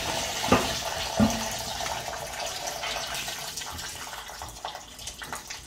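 Small metal clicks and ticks of an Allen key working the set screw under a Moen Posi-Temp shower handle, two sharper clicks in the first second and lighter ticks after. Behind them a hiss of water that fades away.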